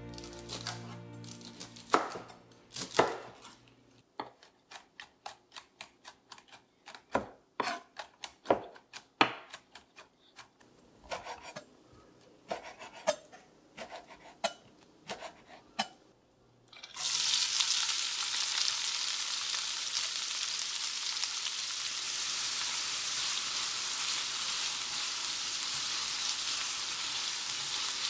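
Chef's knife chopping on a wooden cutting board, irregular knocks through celery stalks and then leafy greens. About seventeen seconds in it gives way to a steady sizzle of diced onions and green peppers frying in a pan, stirred with a wooden spoon.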